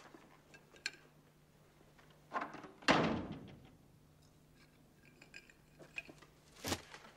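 A door slamming shut about three seconds in, a sharp heavy thud that rings on in a large hall. A few lighter knocks come before it, and another heavy thump near the end.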